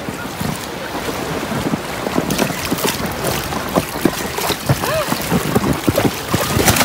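Shallow sea water splashing and lapping as a person climbs onto a large inflatable float, with wind buffeting the microphone.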